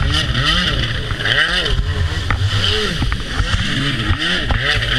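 Stand-up jet ski engine revving up and down over and over, about twice a second, as the throttle is worked while freeriding in surf, over a steady rushing hiss.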